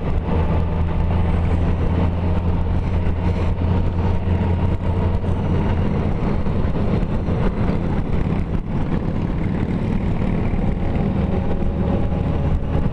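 Honda Gold Wing's flat-six engine running at a steady cruise, heard from the handlebar-mounted camera as a continuous low drone under a rush of wind and road noise.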